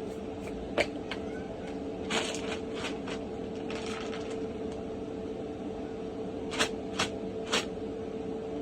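Handling noises: a few sharp clicks and short rustles, three of the clicks close together near the end, over a steady hum.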